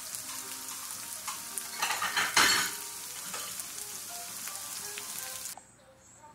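Sliced onions and green bell peppers sizzling in oil in a nonstick skillet, a steady crackling sizzle with a louder rush about two seconds in. The sizzle cuts off abruptly near the end.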